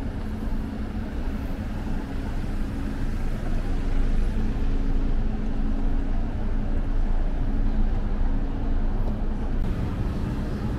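Outdoor street ambience: a steady low rumble of traffic with the hum of vehicle engines running, a little louder midway.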